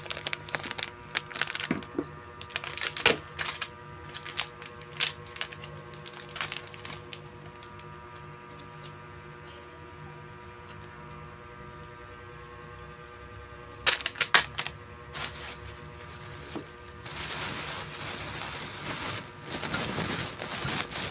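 Plastic packaging crinkling and crackling as it is handled close to the microphone: a Milo foil sachet and an orange plastic bag. Scattered sharp crackles, a quiet pause in the middle, then a longer stretch of continuous rustling near the end.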